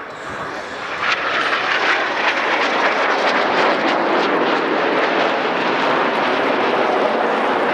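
Jet noise from a formation of Aermacchi MB-339 PAN jet trainers, each with a single Rolls-Royce Viper turbojet, passing overhead. The rushing sound swells about a second in and then holds steady and loud.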